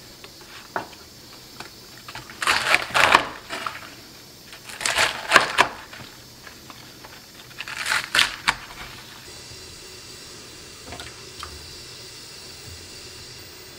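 Chef's knife chopping large green onions (daepa) on a wooden cutting board: three quick runs of rapid cutting strokes, each about a second long, the board knocking under the blade.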